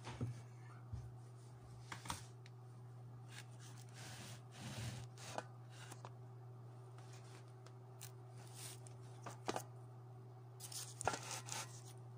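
Scattered rustles, clicks and light knocks of handling close to the microphone, over a steady low electrical hum. There is a longer rustle about halfway through and a quick run of clicks near the end.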